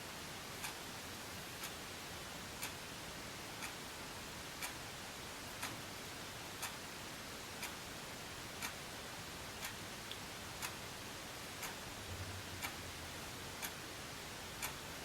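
A clock ticking about once a second over faint room hiss, with a faint low hum coming in near the end.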